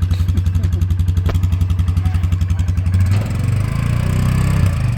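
A four-wheeler (ATV) engine idling with a steady, rapid putter, then revving up about three seconds in.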